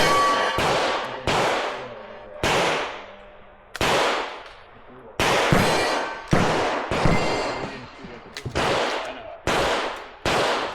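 Revolver gunfire: about eleven single shots at an uneven pace, most 0.6 to 1.5 s apart, each with a sharp crack and a ringing tail.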